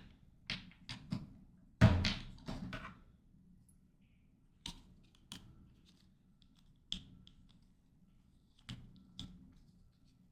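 Scattered clicks and taps from a computer keyboard and mouse at a desk, in a small room. A louder thunk and a quick cluster of taps come about two seconds in, then single clicks every second or so.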